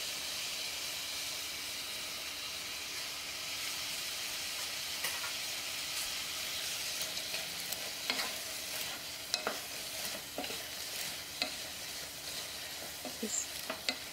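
Food sizzling steadily in a hot pot as mung bean sprouts are added to spicy beef in red pepper oil. From about five seconds in, a wooden spatula stirring the sprouts in, with scrapes and knocks against the pot that come more often toward the end.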